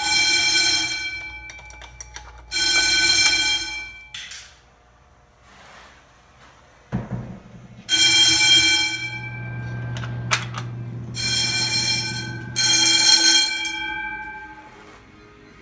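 Commercial fire alarm horn sounding in blasts of a second or two, a steady pitched tone, about five blasts with a pause in the middle. A sharp click about seven seconds in.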